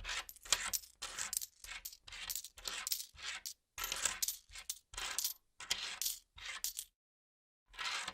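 Coins being counted by hand: a quick run of metal clinks and chinks as coins are slid and stacked, in short clustered bursts. There is a brief pause about seven seconds in before the clinking resumes.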